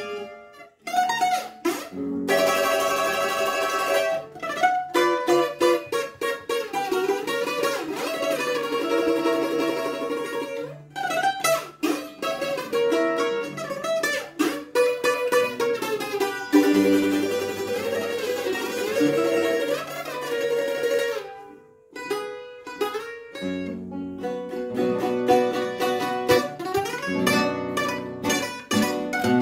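Greek bouzouki playing a quick plucked melody, accompanied by acoustic guitar. The music thins out briefly just after the start and again about two-thirds of the way through.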